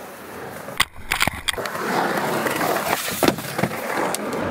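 Skateboard on a concrete water slide: a cluster of sharp clacks about a second in, then the wheels rolling with a steady grinding rumble, with a few more knocks around three seconds in.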